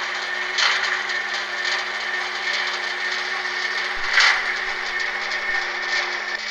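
Märklin model steam locomotive of class 66 running, a steady whirring hiss over a low hum, briefly louder about half a second and four seconds in.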